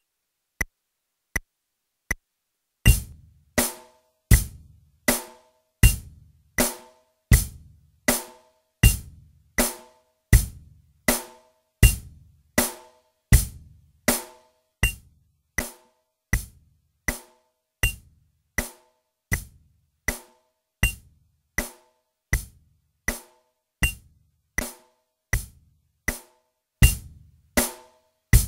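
Four light clicks of a count-in, then a drum kit playing a slow, steady, repeated beat of about 80 strokes a minute: a beginner's practice drill pattern.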